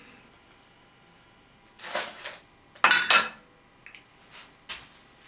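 Small jars and bench items being handled and set down on a hard surface: two quick clusters of knocks and clinks about two and three seconds in, then a few faint ticks.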